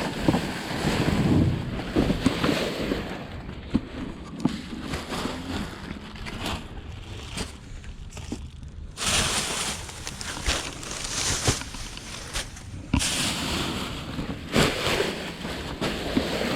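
Rubbish being gathered up by hand: rustling of bags and loose trash with scattered knocks and clatters, in uneven bursts with louder rustling stretches about halfway through and again near the end.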